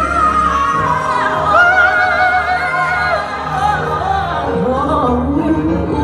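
A showy singing voice over backing music, holding high notes with wide vibrato and sliding through runs that wander downward in the second half.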